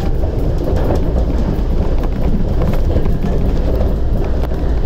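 Shonan Monorail 5000-series suspended monorail car running at speed, heard from inside at the front of the car: a steady low rumble from the rubber-tyred bogies running in the overhead track beam, with scattered light clicks and rattles.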